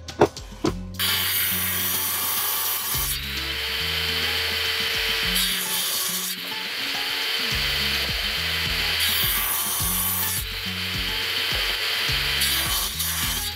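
Table saw ripping a pine block in several passes, the blade's cutting noise changing in pitch and level between passes. A sharp click comes just after the start.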